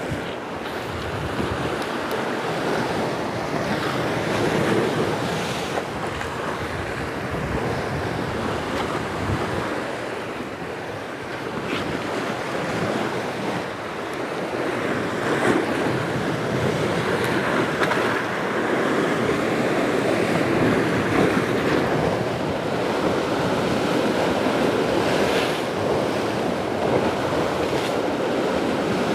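Sea waves washing and breaking against shore rocks, swelling and easing, with wind gusting over the microphone.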